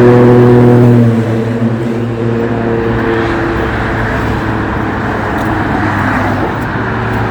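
A motor vehicle's engine running steadily close by, a low pitched hum over road noise, loudest for the first second and then settling at a slightly lower level.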